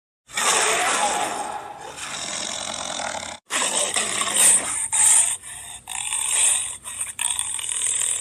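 Rasping, growling big-cat calls, edited so that the sounds of two species are blended together as a hybrid cat's voice. They come in two stretches, split by a short break about three and a half seconds in, and the second stretch is choppier.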